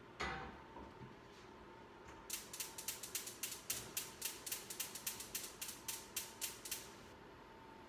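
A thump of a pot set down, then a gas stove burner's spark igniter clicking rapidly, about four clicks a second for a few seconds before it stops as the burner is lit.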